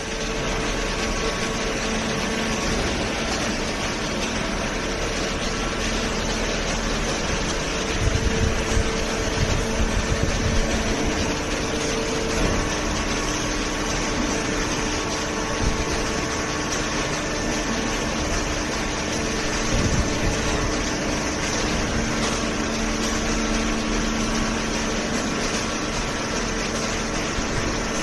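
Hydraulic cardboard baler line with its infeed conveyor running: a steady industrial machine hum with a few faint held tones, and some irregular knocks about eight to twelve seconds in and again near twenty seconds.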